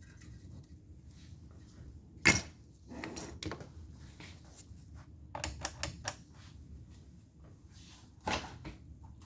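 Sharp clicks and knocks from handling a Troy-Bilt electric chainsaw, including a quick run of about five clicks, with no motor running: the saw will not start because its chain brake is engaged.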